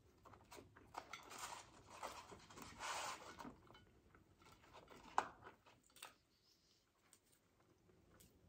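Faint rustling and crinkling of a paper food wrapper and cardboard box being handled, mostly in the first few seconds, with a couple of sharp clicks a little past the middle.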